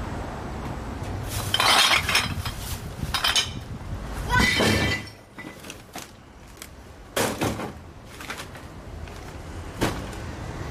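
Four clattering crashes of hard objects with clinking, like glass or hard things knocking together. The first two last about a second each and the last two are short.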